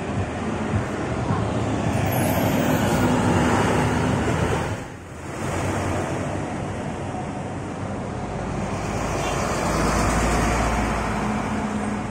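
Daewoo BH117H coach bus driving past with its diesel engine running. After a short dip about five seconds in, a Higer KLQ6119QA coach passes with its engine running, its low rumble loudest around ten seconds in.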